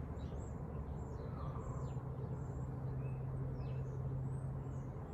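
Birds calling: several short, high, falling chirps over a steady low outdoor hum that grows a little louder in the middle.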